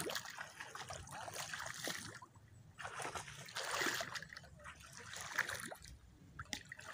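Water splashing and sloshing in uneven bursts as people wade through a shallow river, legs stirring the water.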